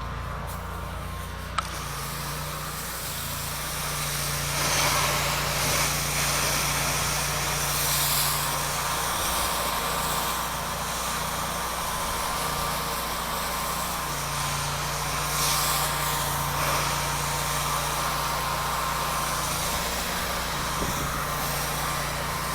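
Pressure-washer engine running steadily, under an even hiss of water spray from the rinse wand, with a few swells in the hiss.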